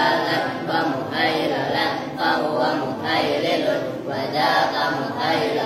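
A group of boys chanting Arabic text aloud in unison, a singsong recitation that rises and falls in short phrases of about a second each.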